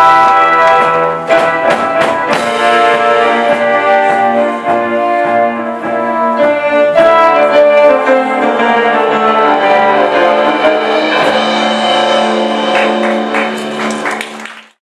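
Instrumental music closing out a musical-theatre song, with percussion strikes over sustained chords; a final held chord cuts off abruptly near the end.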